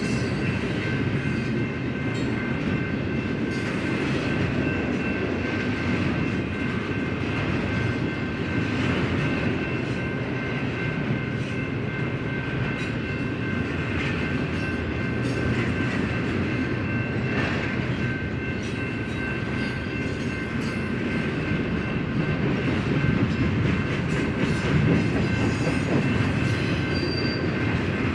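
Double-stack intermodal freight cars rolling past: a steady rumble and rattle of steel wheels on rail, with a faint steady high-pitched whine over it, growing a little louder near the end.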